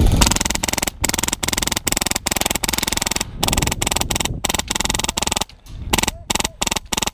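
Airsoft electric gun firing full-auto in short rapid bursts, many in a row with brief pauses between them.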